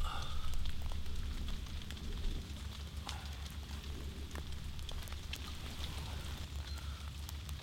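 Low rumble of wind on the microphone, with scattered light ticks and crackles.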